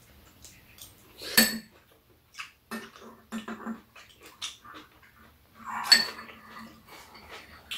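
Metal spoons and chopsticks clinking and scraping against ceramic bowls while two people eat, with soft mouth sounds of eating in between. Two sharper clinks stand out, about a second and a half in and about six seconds in.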